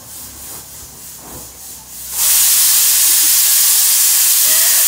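A loud, steady hiss that starts suddenly about two seconds in, after a quieter stretch.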